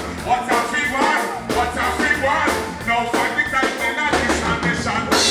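Live music through a PA system: a male performer singing into a handheld microphone over music with a steady beat.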